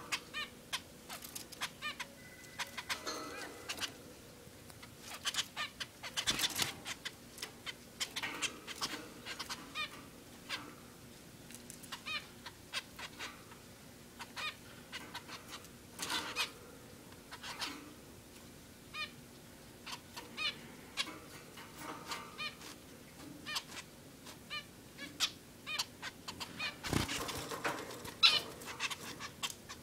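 Zebra finches calling: many short, repeated beeping calls, some in quick runs of two or three, with a thump near the end.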